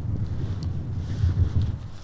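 Wind buffeting the microphone: an uneven low rumble that rises and falls throughout.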